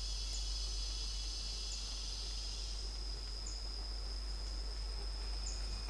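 Forest insects: a steady high-pitched drone, with faint short chirps every second or two and a fainter high hiss that fades out about halfway through, over a low hum.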